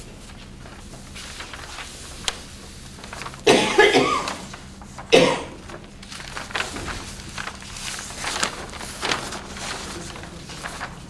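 A person coughs twice, about three and a half and five seconds in. Around the coughs is the crackly rustle of a large sheet of painting paper being lifted, rolled and handled.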